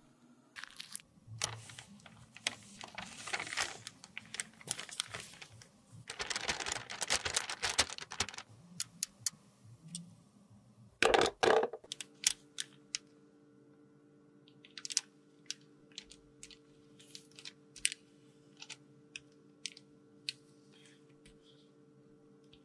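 Close-miked makeup work: a metal spatula mashes and scrapes broken red lipstick inside a plastic bag, with crinkling, scraping and sharp clicks. Dense scraping and rustling fill the first half, with a loud burst near the middle, and then mostly scattered single clicks and taps over a faint steady hum.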